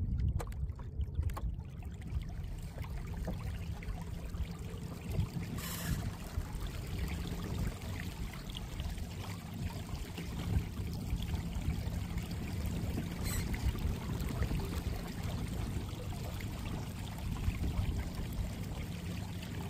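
Kayak under way on its electric trolling motor: a steady low hum with water rushing and trickling along the hull.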